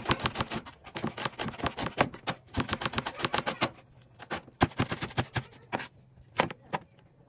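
Kitchen knife chopping red onion and then tomatoes on a wooden chopping board: a fast run of sharp knocks of the blade on the board, several a second, broken by short pauses.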